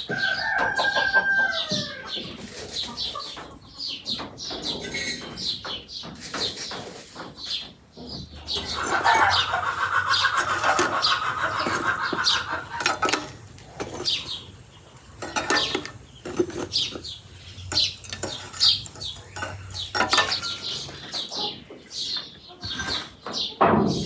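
Chickens clucking, with a long run of rapid clucks about nine to thirteen seconds in. Short clinks and knocks come and go throughout.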